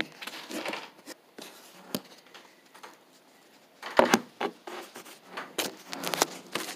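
Handling noise as a phone is set up and propped in place: scattered clicks, taps and rubbing, with a cluster of louder knocks about four seconds in and more near the end.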